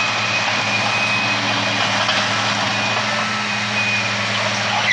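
Machinery running steadily: a low engine hum with a thin, steady high whine over a wide hiss.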